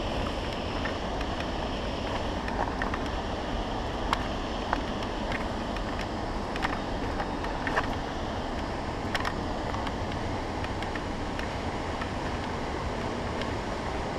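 Steady rushing of a river and waterfall, with wind buffeting the microphone, broken by scattered sharp clicks.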